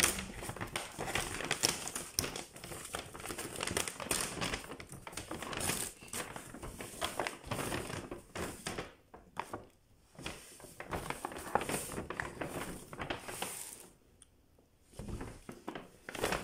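Plastic grocery packaging crinkling and rustling as groceries are handled and taken out, in dense irregular crackles. It pauses briefly about nine seconds in and again about fourteen seconds in.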